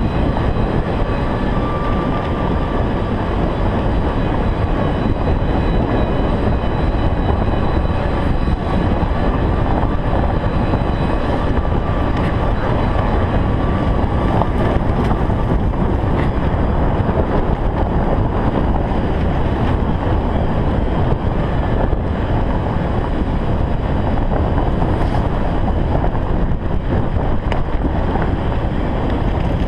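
Golf cart driving steadily along a paved path: a continuous rumble of the cart and its tyres, with wind buffeting the cart-mounted microphone and a faint steady whine through the first half.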